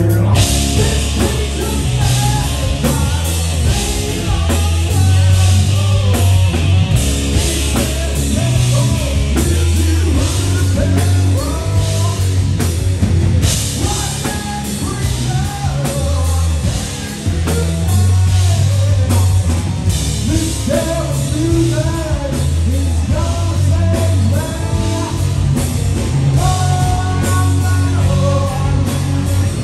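A live rock band playing: a man singing over electric guitar, bass guitar and a drum kit, with a heavy, steady bass line.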